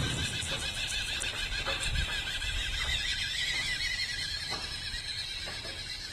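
Small electric motor and gearbox of an MN-99 1:12 scale 4WD RC car whining steadily under load as it climbs, the pitch wavering and rising briefly about three seconds in, with a few short knocks from the chassis and tyres on the ground.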